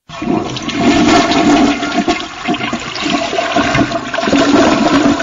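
A toilet flushing, its water rushing loudly and steadily into the bowl.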